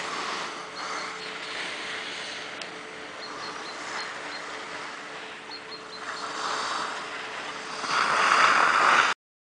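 Skis sliding and scraping over packed snow, a steady rushing noise mixed with wind on the microphone, rising to its loudest as the skier comes close near the end before cutting off abruptly.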